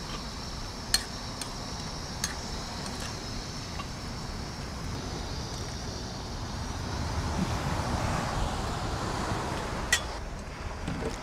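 Wind rushing over the microphone, swelling for a few seconds in the second half, over a faint steady high hiss, with a few sharp clicks.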